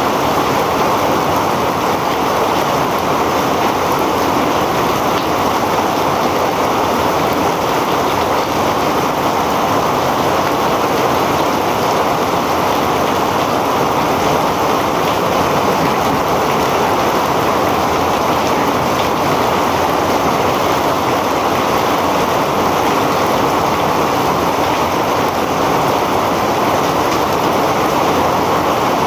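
Heavy rain falling steadily, a dense even hiss of rain on surfaces with no breaks.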